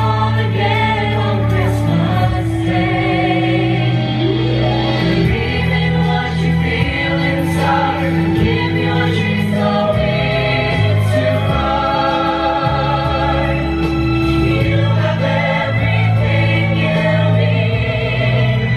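A choir singing with instrumental accompaniment, voices holding long notes over a sustained bass.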